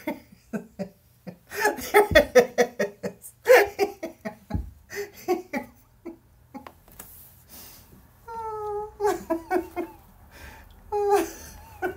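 A woman laughing hard in repeated bursts of giggles, with two low thumps in the first half.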